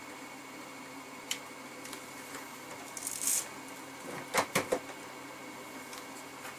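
Small clicks and rustling from hands working wires and a soldering tool at a soldered wire splice. There is a short hiss about three seconds in, and three sharp clicks just past four seconds, the loudest.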